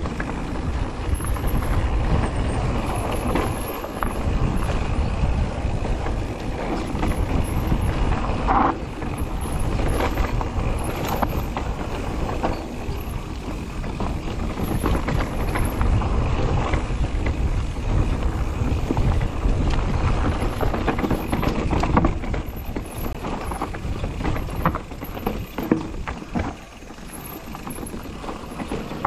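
Mountain bike ridden fast down a dirt forest trail: wind rumbling on the camera microphone over the noise of tyres on dirt, with frequent knocks and clatter from the bike over bumps and roots.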